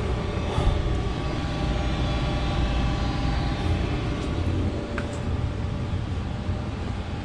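2008 Goodman 95% AFUE gas furnace running at the start of a heating cycle: a steady low drone of the burner and blower, with a faint steady hum on top.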